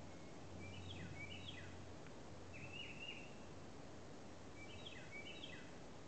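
A songbird singing short phrases of high notes with quick falling slurs: one phrase about a second in, a different one about three seconds in, and the first phrase again about five seconds in. Under it is a steady outdoor background hiss, with a faint low hum that stops about two seconds in.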